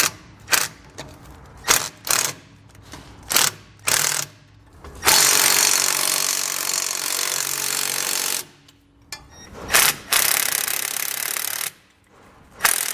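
Cordless impact driver running nuts down on the air spring's lower bracket bolts. It goes in a string of short trigger bursts, then a long hammering run of about three seconds as a nut seats, then a few more short bursts near the end.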